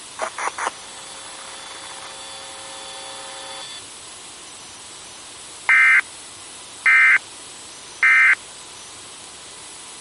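Emergency Alert System end-of-message signal: three short, equal bursts of harsh buzzing SAME data tones, about a second apart, over a steady background hiss.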